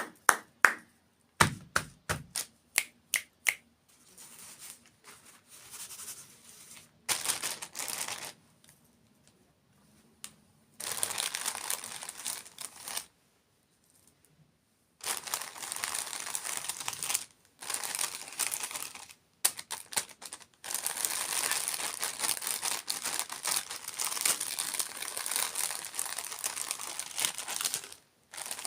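Plastic dessert packaging crinkling and tearing in long stretches, after a quick run of sharp taps or clicks in the first few seconds.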